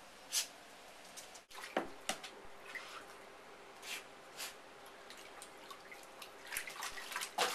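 Water splashing and dripping in a kiddie pool as bull terriers move about in it. The splashes are short and scattered, with a quicker run of them near the end.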